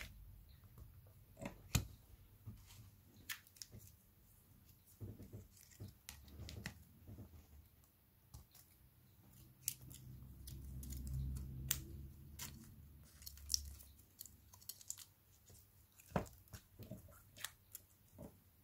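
Small clicks, taps and rustles of hands handling an opened Samsung Galaxy A50's frame and flex cables on a silicone repair mat, with a low rubbing rumble for a few seconds in the middle.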